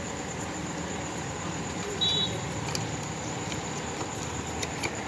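Steady low background noise with a few faint clicks, and a brief high chirp about two seconds in.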